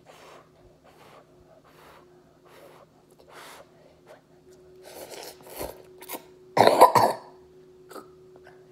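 A child's soft, quick breaths and huffs, then a loud, harsh cough near the end, brought on by the burn of spicy instant noodles.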